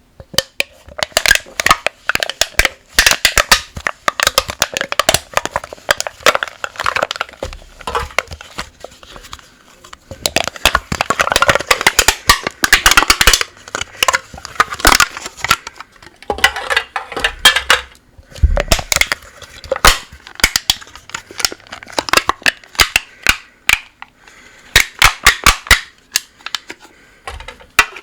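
Aluminium drink can being twisted and crushed by hand: irregular runs of sharp metallic crackles and pops as the thin wall buckles and folds, with short pauses between handlings.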